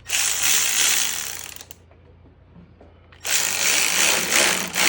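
A tool tightening a hose clamp on a radiator hose, in two rapid, rattling spells of about a second and a half each with a pause between.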